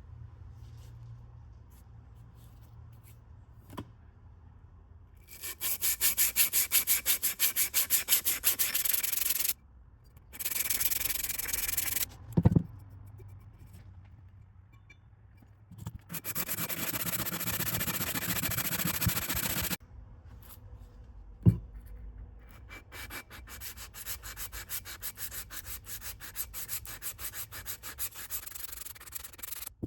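Hand sanding with 400-grit sandpaper on the rusted metal base of a 37 mm anti-tank shell: quick back-and-forth scraping strokes in several runs that stop and start. Two short knocks stand out, one near the middle and one a little later.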